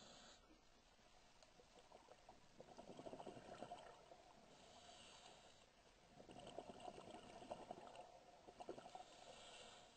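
Faint sound of a scuba diver breathing through a regulator underwater, two breaths in all. Each breath is a hiss as air is drawn in, then a crackling burst of exhaust bubbles on the breath out, repeating about every four and a half seconds.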